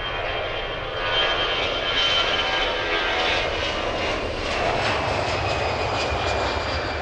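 Small yellow airplane's engines running loud as it moves along the airstrip: a steady rush with a high whine on top, swelling about a second in.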